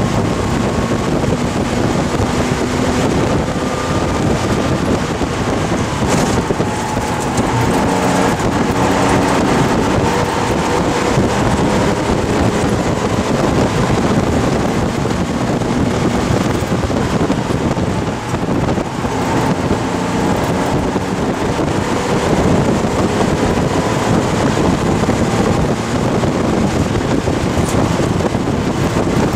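1971 Porsche 911T's air-cooled flat-six engine heard from inside the cabin on a hot lap, its pitch rising and falling with throttle and gear changes over constant wind and road noise. About two-thirds of the way through it briefly drops off, then picks up again.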